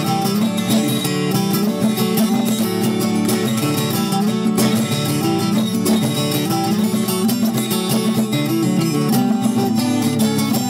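Background music: strummed acoustic guitar playing steadily.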